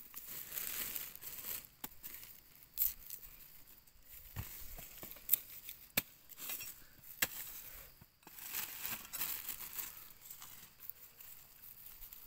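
Dry grass and leaves rustling and crackling, with scattered sharp snaps and clicks, as freshly dug arrowroot tubers and their roots are handled and pulled.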